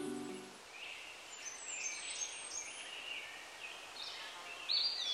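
Small birds chirping and singing in quick, high, sliding calls, louder and denser near the end. The tail of soft background music fades out in the first moment.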